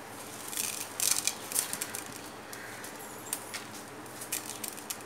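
Ladle stirring idli podi ingredients (roasted lentils and dried red chillies) together in a pan for a last light roast: irregular light scrapes and clicks of the ladle against the pan, over a faint steady hiss.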